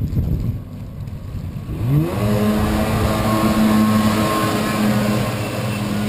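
Kawasaki 750SS jet boat engine revving up quickly about two seconds in, then holding a steady high pitch at speed. Wind and water noise comes before it.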